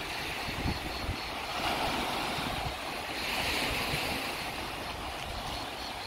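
Surf from a rough, storm-stirred Black Sea breaking on the beach, a steady wash that swells twice, with wind buffeting the microphone.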